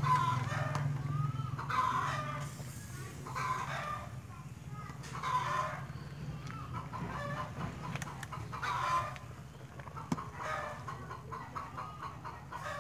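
Chickens calling over and over, a separate call every second or two.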